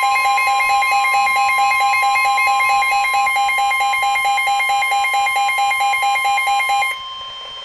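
Emergency weather-alert tone: a loud, steady electronic alarm with a rapid pulsing overtone pattern, the signal that precedes an urgent warning broadcast, here a tornado warning. About seven seconds in the louder pulsing part stops, leaving one steady tone.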